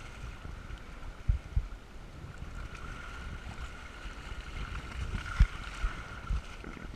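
Water rushing and splashing along the hull of a Hobie sailing kayak under way in choppy water, with a few short, dull low thumps as waves slap the hull.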